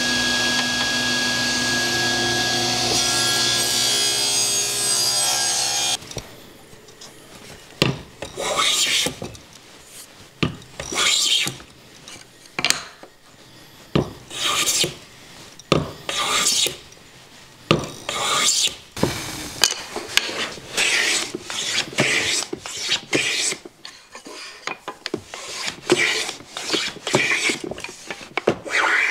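A table saw running and cutting plywood, cutting off abruptly about six seconds in. Then come repeated long strokes of a hand plane on a thin wooden strip, with quicker, shorter strokes in the last ten seconds.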